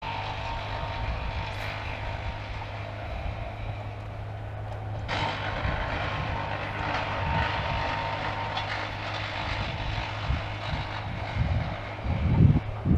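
A motor drones steadily with a constant low hum, with a few low thumps near the end.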